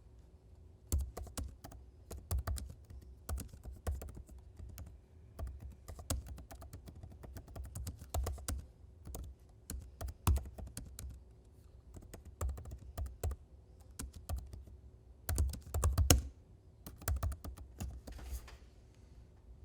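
Typing on a computer keyboard: irregular runs of key clicks with short pauses between words, and a faster, louder flurry of keystrokes about three quarters of the way through.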